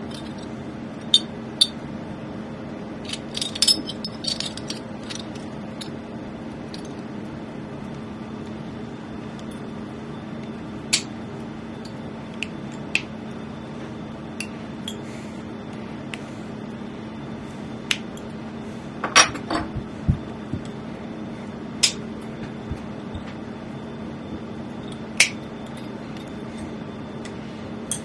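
Scattered sharp metallic clinks of silver pieces and jeweller's tools being handled and set down on a workbench and in a small steel bowl, every few seconds, over a steady low hum.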